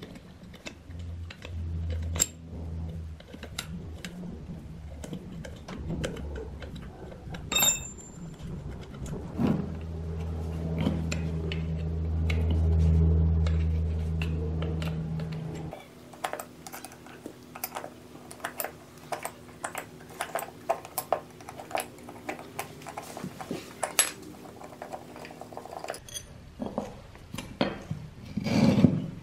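A metal wrench clinks and scrapes on the bolts and cast end cover of a rusty electric motor as it is taken apart. There are many small metal clicks and knocks, with a short ringing ping a little before the middle and a heavier knock near the end. A low steady hum runs under the first half and stops suddenly about halfway through.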